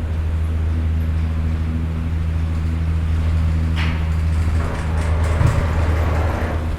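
Machinery of an 8-person gondola's return terminal running with a steady low drive hum. A sharp clack comes a little past halfway, followed by about two seconds of rattling hiss from the terminal's moving parts.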